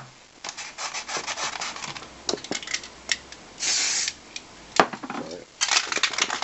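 Aerosol spray paint can in use: clicks and rattles of the can being handled, then a short hiss of spray about three and a half seconds in, and another spell of spraying and rattling near the end.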